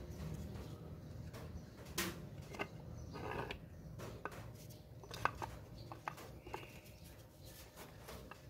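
Scattered clicks and knocks of metal and plastic parts being handled and fitted together as the gear head of a handheld electric cutter is seated onto its motor housing, with a brief scrape about three seconds in. A low steady hum runs underneath.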